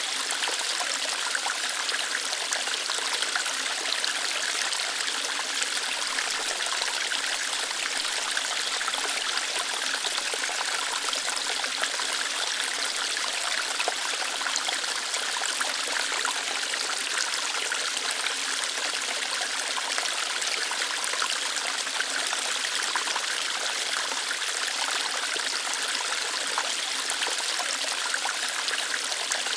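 Small waterfall, water flowing lightly over and through rocks in a steady, even rush without breaks.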